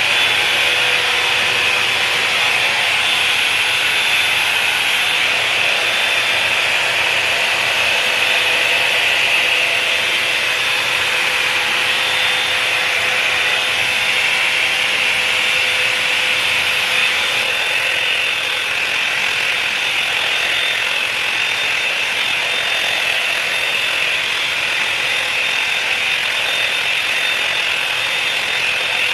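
Revlon One-Step Volumizer hot-air brush dryer running steadily, its motor and fan blowing air while it dries a section of hair. A faint hum under it fades about halfway through.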